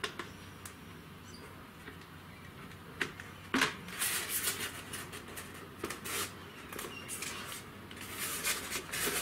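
Foam block rubbing and scraping against a plastic helmet shell as it is forced into place by hand, with two sharp knocks about three seconds in, followed by a stretch of irregular scraping and squeaking from about four seconds in.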